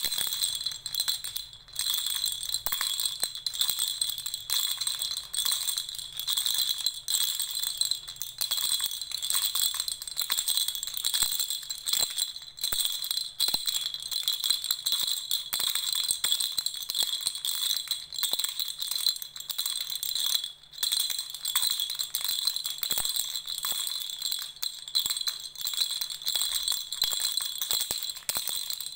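Baby rattle shaken continuously, a dense high-pitched rattling with a few brief pauses, the clearest about twenty seconds in.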